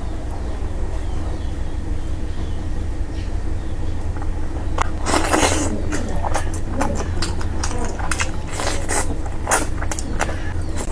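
Close-up eating sounds: lip smacks and wet chewing clicks, sparse at first and then coming thick and fast from about halfway through, over a steady low hum.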